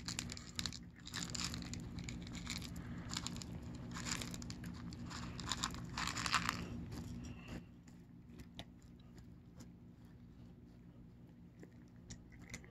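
Cats crunching dry kibble: a quick, uneven scatter of small crunches that thins out about seven and a half seconds in.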